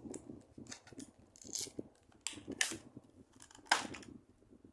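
Cardboard box and paper contents being handled and pulled out: a series of short, irregular scrapes and rustles, the loudest nearly four seconds in.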